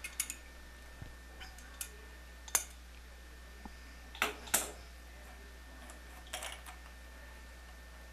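Scattered light metallic clicks and scrapes of a chrome pop-up drain assembly being handled and its mounting nut turned by hand, about half a dozen short sharp clicks with the loudest two close together a little past the middle.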